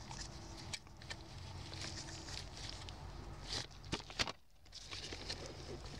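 Rustling and light clicking as gloved hands work the gear shifter and its rubber boot back into place, with a few sharper clicks about three and a half to four seconds in.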